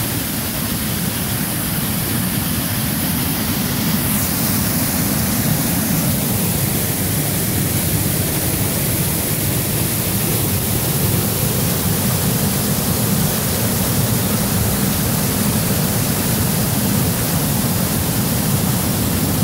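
Rain-swollen waterfall pouring at high flow: a loud, steady rush of water.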